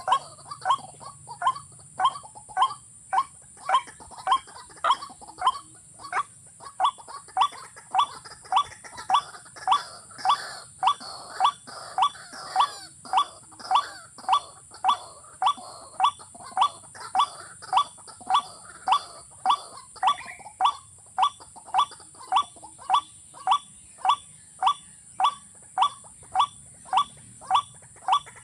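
Watercock calling: a short, rising note repeated at a very even pace, about one and a half calls a second.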